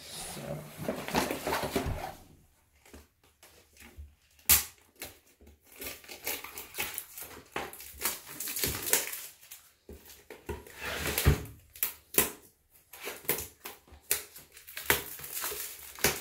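Clear plastic wrap on a new toilet seat crinkling and its cardboard box rustling as it is handled, with scattered sharp knocks, the loudest about four and a half seconds in and again near eleven seconds.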